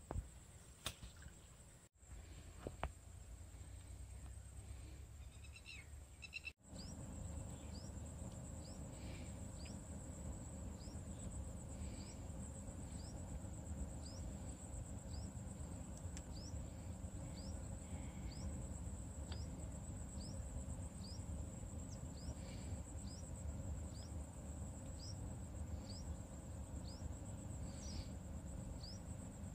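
Outdoor ambience: insects keep up a steady high-pitched trill, and from about six seconds in a short sharp chirp repeats roughly once a second, over a steady low rumble.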